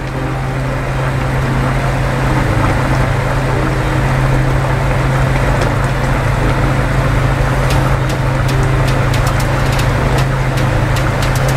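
A steady, loud mechanical hum with a rushing noise over it. From about eight seconds in, light sharp ticks come and go over the hum.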